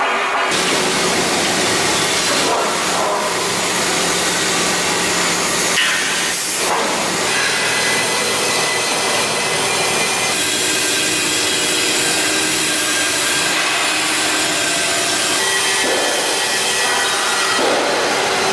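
Steady machine noise in a steel fabrication shop, then a band saw running as its blade cuts through a steel beam: a continuous gritty hiss with faint steady whining tones.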